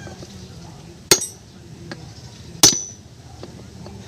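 Hammer striking metal, two sharp blows about a second and a half apart, each with a brief metallic ring, during reassembly of a 4x4 front differential.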